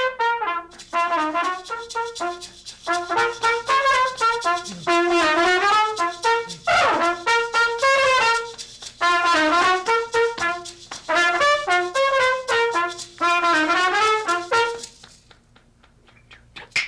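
Trumpet playing a tune in short phrases of changing notes, then stopping near the end.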